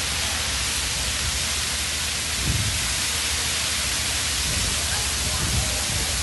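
Dancing-fountain water jets shooting up and falling back, a steady dense rushing hiss of spray and splashing water, with two brief low rumbles about two and a half and five and a half seconds in.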